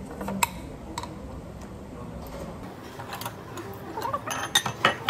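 Eating utensils clicking against a ceramic bowl and the table: a couple of single clicks at first, then a quicker run of clinks in the last couple of seconds.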